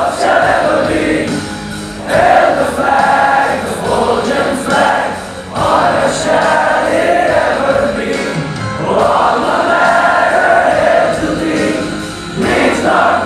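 Choir of male voices singing a college anthem in long held phrases, with short breaks between lines.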